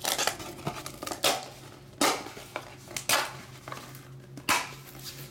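Sealed trading-card boxes and packs being picked up and set into a cardboard box, making about five sharp clunks and rustles roughly a second apart.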